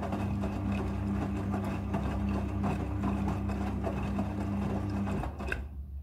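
Front-loading washing machine's drum motor running with a steady hum while wet laundry tumbles, with scattered light clicks. The hum stops about five seconds in, followed by a single sharp click as the drum comes to rest.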